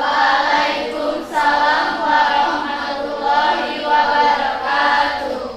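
A group of children's voices chanting together in unison, loud and sustained, with brief breaks between phrases.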